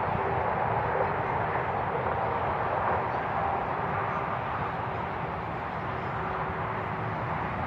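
Steady outdoor background noise with a faint, even hum.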